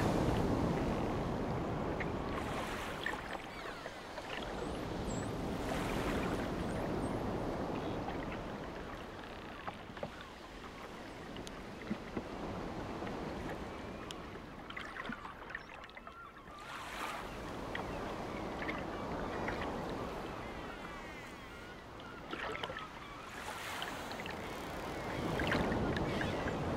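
Sea waves breaking close to a seawall and washing over the promenade, the surf noise swelling and ebbing as each wave comes in and draws back, loudest at the start and again near the end.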